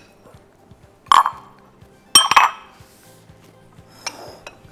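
Utensil clinking against a mixing bowl while the custard filling is worked: two sharp clinks about a second apart, the second a quick double and the loudest, then a fainter one near the end.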